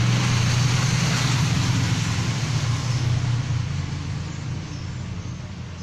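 Motor vehicle engine running with a steady low rumble and a noisy hiss over it, fading gradually through the second half. No air horn blast is heard.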